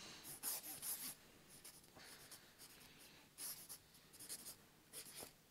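Faint scratching and squeaking of a marker pen on football shirt fabric, in several quick bursts of short strokes as an autograph is signed.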